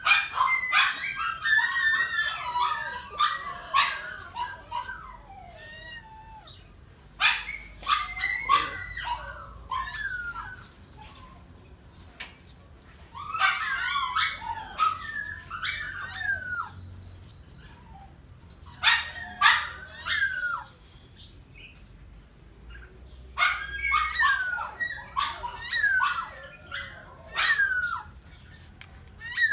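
Small miniature pinscher dogs yipping and whining in high, bending cries during a mating attempt, in about six bouts of a few seconds each with quieter gaps between.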